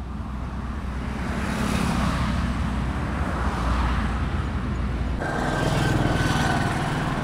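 A motor vehicle running on a road, with a low rumble and rising wind and road hiss. About five seconds in the sound changes abruptly to a steadier engine note.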